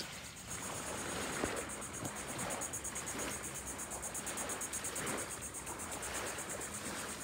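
Insects trilling in a fast, even, high-pitched pulse, over a steady soft hiss of outdoor background.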